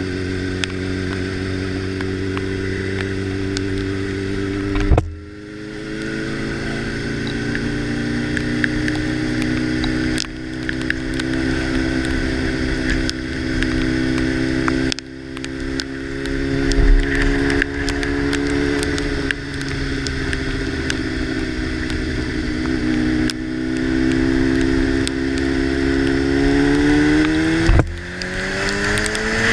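Motorcycle engine pulling through the gears: its pitch climbs, drops sharply at each shift several times, then climbs again. A steady hiss of wind and tyres on the wet road runs under it.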